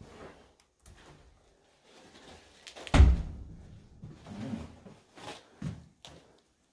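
One loud thud about three seconds in, with quieter knocks and bumps after it.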